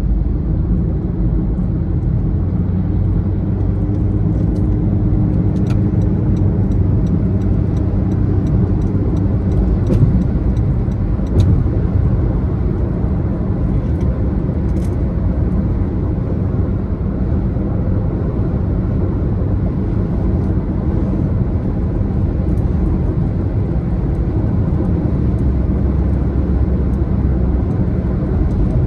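Steady low rumble of a car on the move: engine and tyre noise from the road. Faint light ticks come through now and then in the first half.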